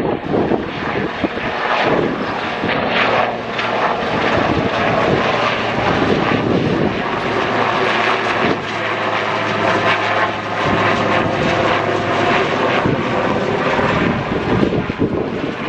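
Airliner's engines running with a steady whine, loud and close, with gusting wind buffeting the microphone.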